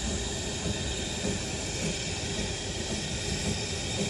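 Heritage train running, a steady rumble with a hiss over it.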